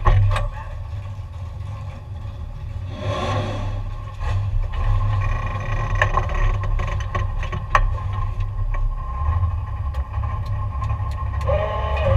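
Camaro engine idling with a steady low rumble, heard from inside the car's cabin. It gets somewhat louder about four seconds in, and a few short clicks and knocks sound over it.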